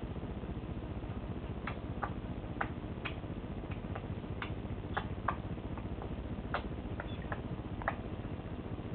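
About a dozen light, irregularly spaced clicks and taps in a stainless steel kitchen sink while a kitten moves about in it, over a steady low hum.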